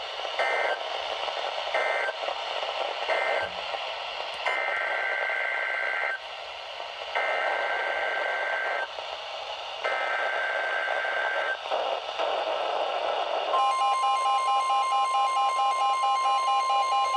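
NOAA Weather Radio Emergency Alert System data bursts over radio hiss: three short end-of-message bursts, then three longer SAME header bursts, each a two-tone electronic screech, announcing the next flood warning. About thirteen seconds in, the steady 1050 Hz weather-radio warning alarm tone begins, with a fainter pulsing tone beneath it.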